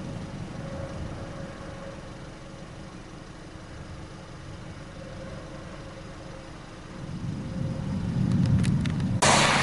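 Car road and engine noise from a vehicle on the move, a steady low rumble that swells louder from about seven seconds in. Near the end a sudden loud rush of noise cuts in.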